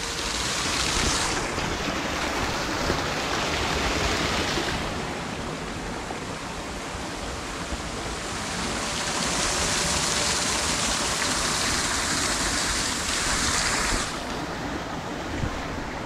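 Small forest waterfall: water falling and rushing as a steady hiss, swelling louder in the second half and dropping back sharply about two seconds before the end.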